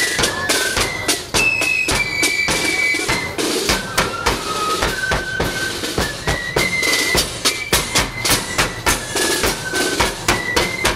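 Marching flute band playing a tune: a single melody line of held notes over a steady beat of bass drum and snare drum.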